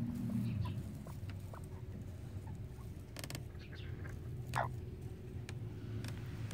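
Light rustling and scattered clicks of hens shifting in wood-shaving nest-box bedding, with a cluster of clicks about three seconds in and one short rising squeak a little past halfway, over a low steady hum.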